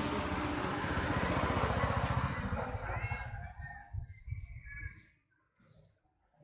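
Short, high-pitched rising chirps from an animal, repeated about once a second, over loud rustling noise that dies away about halfway through.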